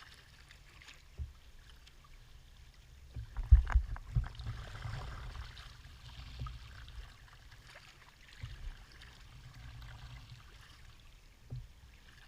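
Sea kayak being paddled: paddle strokes splashing and dripping in the water, with occasional knocks on the hull. A cluster of loud low thumps comes about three and a half seconds in.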